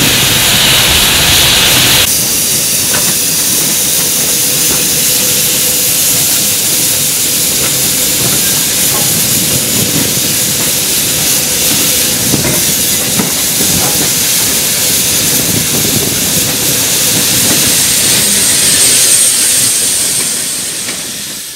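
Bulleid West Country class steam locomotive 34027 'Taw Valley': for about two seconds the running noise of the moving locomotive, then an abrupt change to a steady hiss of escaping steam with a few faint clicks, fading out at the end.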